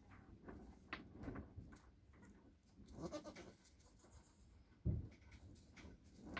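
Nigerian Dwarf goat bleating softly, with a short low thump about five seconds in.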